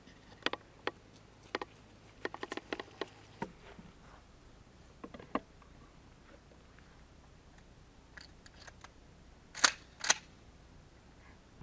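Sharp metallic clicks and clacks from a Mossberg 500 pump-action shotgun being handled. A quick run of clicks comes in the first three and a half seconds and a few more around five seconds in, then two louder snaps about half a second apart near the end.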